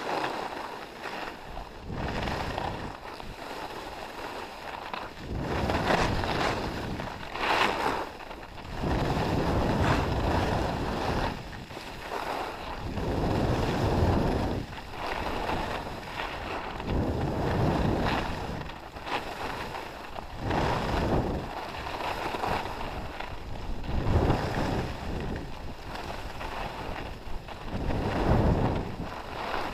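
Skis scraping and hissing over packed snow on a fast downhill run, mixed with wind rushing over the microphone; the noise rises and falls in surges every couple of seconds.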